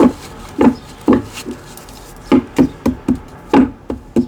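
A tarot deck being handled, with about eleven short, irregular knocks of the cards on a wooden table as they are shuffled and tapped.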